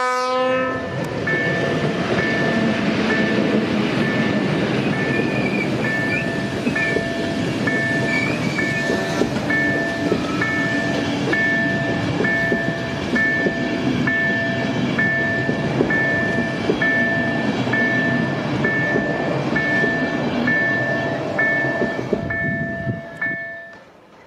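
EU07 electric locomotive and its passenger coaches passing close by: a steady rolling rumble of wheels on rail, with a high tone that breaks off and resumes about once a second. The sound drops away abruptly near the end.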